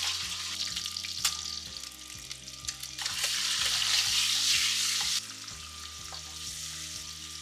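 Peeled boiled eggs frying in hot oil in a nonstick wok: a steady sizzle, louder for about two seconds in the middle and dropping suddenly just after, with a few light clicks.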